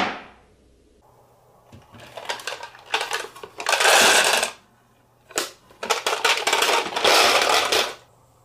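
Glass marbles clinking and rattling against each other and the plastic bin of a toy garbage truck as the truck is handled, in two spells of dense clicking with a short pause between.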